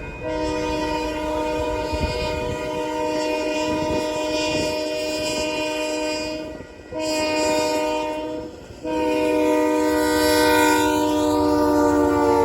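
Nathan K3HA three-chime horn on a Union Pacific GE AC4400CW locomotive blowing for a grade crossing: a long blast, a short one, then another long blast that sinks slightly in pitch near the end. Low train rumble underneath.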